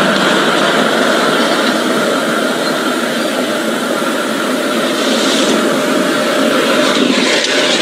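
Steady rushing road noise of vehicles moving on a highway, tyres and wind at a constant level.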